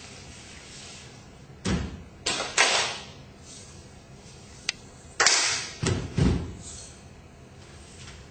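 Body percussion from a group of dancers: sharp hits in two groups of three, about three and a half seconds apart, with a single light click between them.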